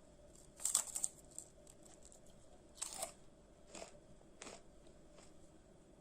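Chocolate-coated puffed rice cakes crunching in a few short crisp bursts, the loudest about a second in and around three seconds, with two smaller ones after.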